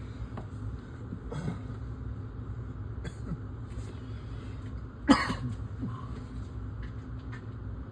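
A man coughing once, loudly, about five seconds in, with a weaker cough-like sound about a second and a half in, over a steady low hum.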